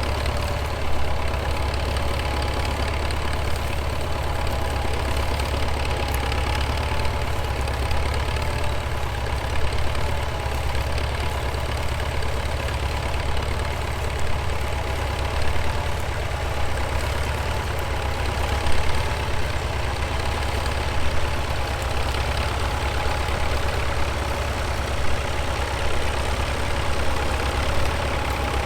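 Tractor engine running steadily: a deep, even drone with a steady higher whine over it, and a few small knocks now and then.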